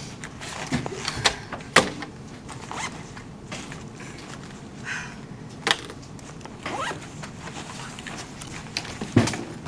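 Scattered clicks, knocks and rustling of objects being handled, with a few sharper knocks standing out.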